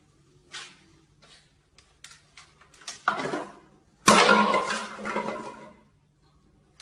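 A few light knocks and taps, then a loud sudden crash about four seconds in, with a clatter that dies away over nearly two seconds, like objects being knocked over and falling.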